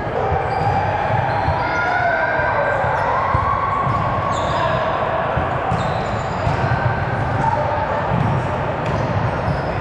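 Indoor volleyball game in a gym: volleyballs thud off hands and the floor again and again, over a steady din of players' voices and short high squeaks.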